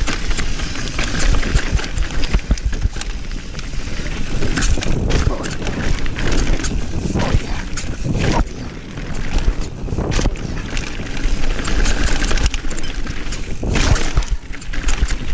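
Mountain bike riding fast down a rough dirt trail: wind rumbling on the microphone, tyres on dirt and stones, and the bike rattling with frequent sharp knocks over the bumps.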